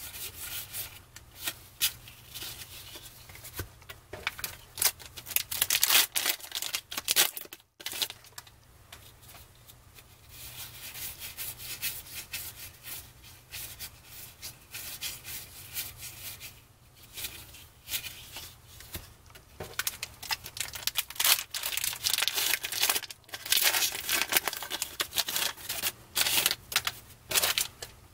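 Cardboard baseball trading cards being shuffled through by hand, each card slid off the stack against the next with quick, irregular rubbing and flicking strokes, denser in two spells with a brief break about eight seconds in.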